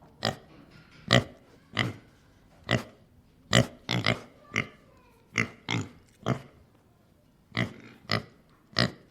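Domestic pig grunting: a series of short, abrupt grunts, about one or two a second at an uneven pace, sometimes two in quick succession.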